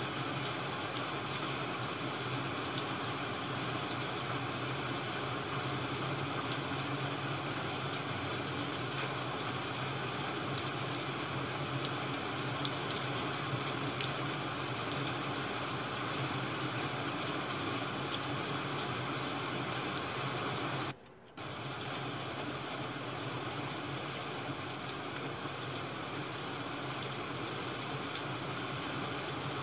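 Ambient crackling-firewood and rain ASMR sound: a steady hiss with scattered sharp crackles. It cuts out for about half a second around two-thirds of the way through.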